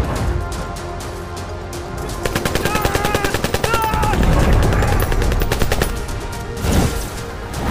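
Film-soundtrack automatic fire from an AK-pattern assault rifle: a fast, even string of shots for about four seconds, starting about two seconds in, over dramatic background music. A short wavering high cry cuts through the middle of the burst.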